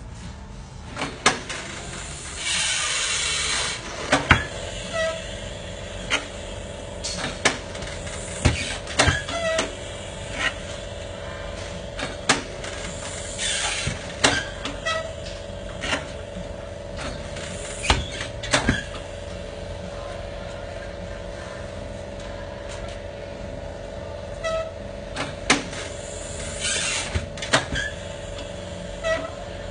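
Tyre repair work: scattered sharp knocks and clanks of tools on metal, with three short bursts of hissing air. A steady hum comes in about four seconds in and runs under it.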